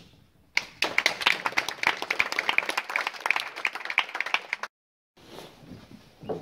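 Audience applauding, a dense run of hand claps that starts about half a second in and breaks off suddenly just after four and a half seconds.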